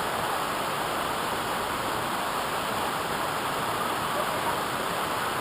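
Steady rushing of a waterfall: an even roar of falling water at a constant level.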